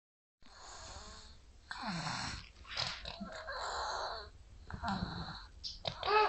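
Nine-month-old baby snoring, a noisy snore on each breath, about five in a row, with a brief higher, whistling note near the end.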